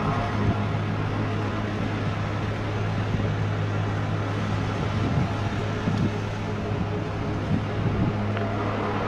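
Steady low droning hum with a fainter higher overtone, under an even hiss: a lo-fi night recording of an unexplained strange noise.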